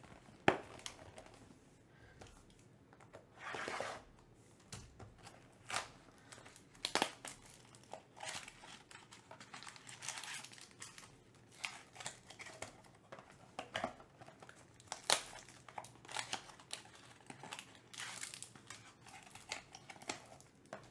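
Clear plastic film on a box-shaped trading-card pack crinkling and tearing as it is handled and opened by hand, with scattered crackles and a few sharp clicks.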